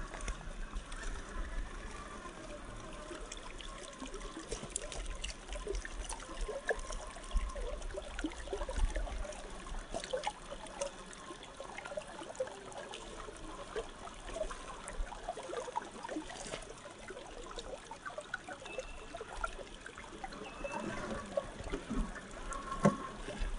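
Creek water trickling and splashing over rocks, with many small scattered clicks and knocks.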